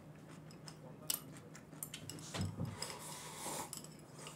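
Quiet eating sounds: a few light clicks of a spoon against a bowl, a brief hum from the eater, then a sip slurped from a small handheld bowl about three seconds in.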